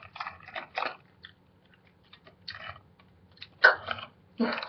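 A person chewing and biting food close to the microphone: short, irregular crunching clicks with pauses between bites.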